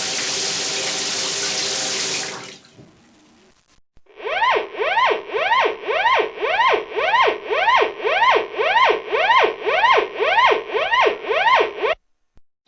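Shower water running, then shut off about two and a half seconds in. From about four seconds a siren wails rapidly up and down, about two sweeps a second, and cuts off near the end.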